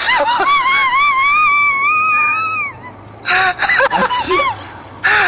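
A person's long, high-pitched scream-like cry, held for nearly three seconds with a wavering pitch. It is followed by shorter cries and breathy bursts.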